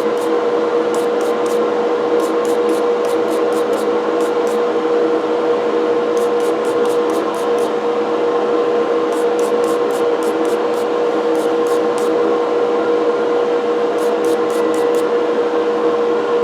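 Wire brush scrubbing the cast iron burrs of an old coffee grinder in quick strokes, about three or four scratches a second in runs with short pauses. Underneath is a steady hum with a clear tone.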